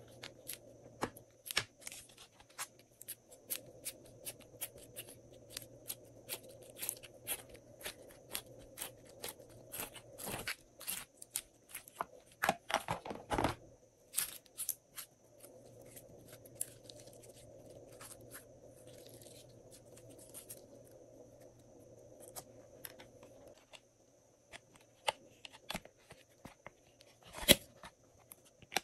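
Glossy slime being squished and stretched by hand, giving irregular clicks and pops, with a run of louder crackles about halfway through.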